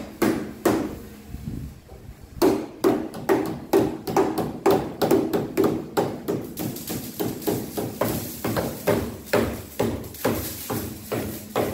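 Two hammers striking the sheet-steel roof of a 1968 Chevrolet Impala, hammer-forming the edge of a cut-out moonroof hole down over a steel jig into a flange. Sharp metal blows with a short ring to each, sparse for about the first two seconds, then an uneven, overlapping run of a few blows a second.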